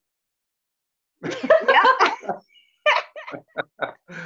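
People laughing over a video call. After about a second of silence a burst of laughter breaks out, then settles into short rhythmic 'ha-ha' pulses.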